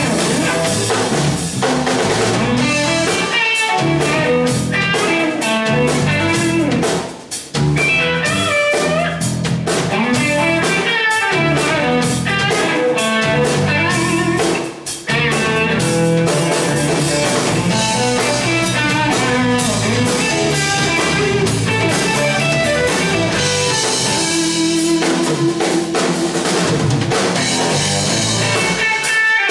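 Live instrumental electric blues: an electric guitar plays lead lines with bent notes over electric bass and a drum kit with cymbals. The band stops briefly twice, about seven and fifteen seconds in.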